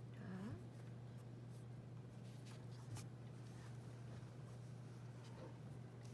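Graphite pencil drawing on paper: faint scratchy shading strokes and light taps of the lead, over a steady low hum.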